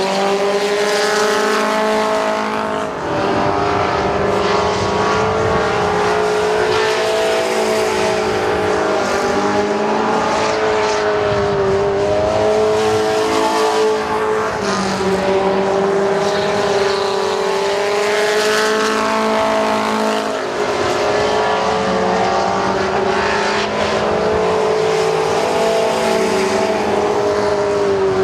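Engines of several dirt-track race trucks running hard around the oval together. Their overlapping engine notes rise and fall as the trucks pass and go into and out of the turns.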